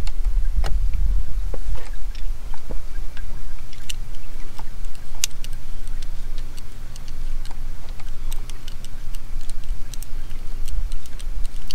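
Screwdriver tightening a band clamp on a coolant hose fitting: scattered small clicks and ticks, over a steady low rumble.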